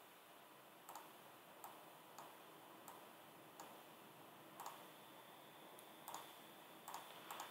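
Faint computer mouse clicks, about nine spaced irregularly, over quiet room tone.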